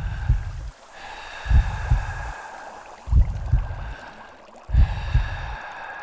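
Logo-intro sound design: clusters of deep thumps repeating about every one and a half seconds over a steady hiss.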